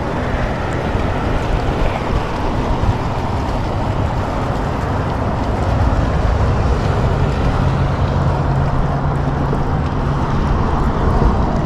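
Boat on open water: a steady low rumble with wind noise, and a low engine-like hum that holds for a few seconds past the middle.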